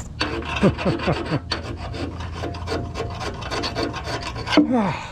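A hand tool is rubbed and scraped rapidly back and forth over the metal of an old engine lathe, taking off old paint down to bare metal. A few short falling squeaks come near the start and again near the end.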